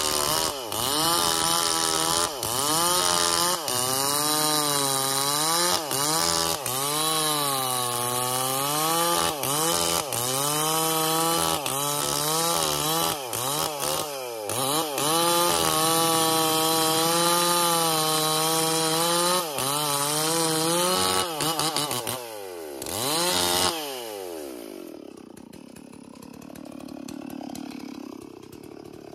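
Stihl MS440 two-stroke chainsaw at full throttle sawing through a felled ylang tree trunk, its engine pitch wavering up and down as the chain bogs under load and frees up. About 23 seconds in, the throttle is released and the engine winds down to a quieter idle.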